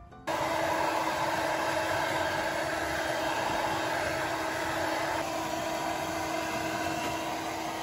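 Handheld hair dryer blowing on a wet puppy's coat: a steady rush of air over a steady motor hum, starting abruptly just after the start and dropping slightly in level about five seconds in.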